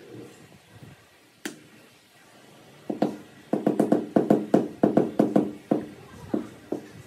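A mallet tapping a 16-inch square ceramic parking tile down into its wet mortar bed to seat and level it. It starts about three seconds in as a quick run of dull knocks, about five a second, then a couple of slower taps near the end. There is one sharp click about a second and a half in.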